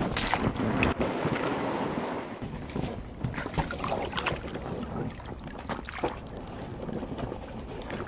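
Inflatable dinghy being launched from a stony shore: water splashing and scattered knocks and scrapes, with wind on the microphone, louder in the first two seconds.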